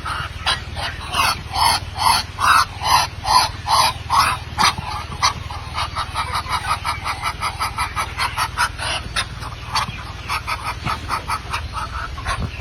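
A group of farm animals calling in short, rapid calls that overlap one another, several a second.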